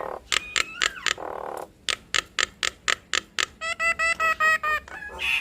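Nias hill mynas calling in a duet. First a series of sharp clicks at about five a second, then a harsh rasp about a second in, then a quick run of ringing whistled notes near the end.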